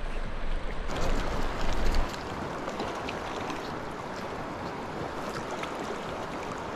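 Steady rush of a river's current, with wind rumbling on the microphone until about two seconds in.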